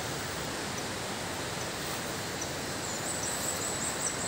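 Steady, even outdoor hiss of an orchard, with a faint run of quick, high-pitched chirps starting about three seconds in.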